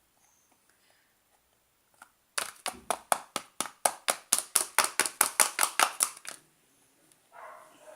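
A fast, even series of sharp plastic clacks, about five a second for some four seconds, from a plastic glue bottle or stirring utensil being knocked against a plastic slime bowl.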